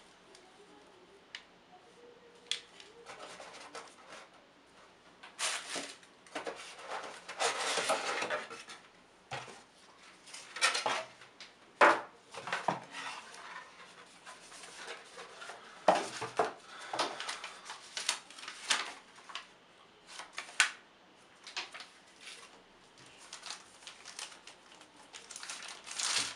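Unboxing handling noise: rustling, knocks and sharp clicks as a charger and its cable, a cardboard box with its plastic insert, and a plastic bag around a tablet are handled. The clicks and knocks come irregularly, and near the end the plastic bag rustles as the tablet is slid out.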